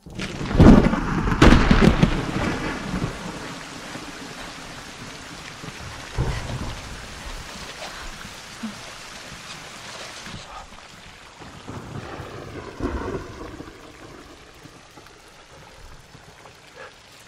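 Thunder and rain from a film soundtrack played over a hall's loudspeakers: a sudden loud clap of thunder at the start with a second crack about a second later, then steady rain with further rolls of thunder about six and thirteen seconds in.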